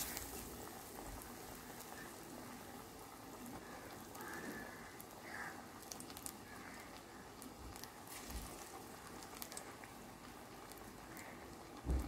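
Chana dal (Bengal gram) vadas deep-frying in hot groundnut oil in a steel kadai: a steady sizzle with scattered crackles, which swells sharply as a patty of batter goes into the oil. Near the end there is one soft low thump.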